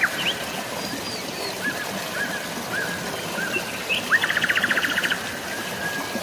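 Birds chirping over a steady hiss of rain and flowing water: a run of short slurred notes, then about four seconds in a rapid trill lasting about a second.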